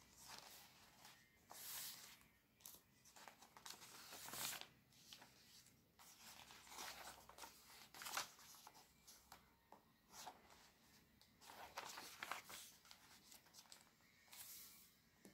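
Glossy paper catalogue pages handled by hand: fingers rubbing and smoothing the pages and a page being turned over, giving quiet, repeated paper swishes and crinkles, the loudest about eight seconds in.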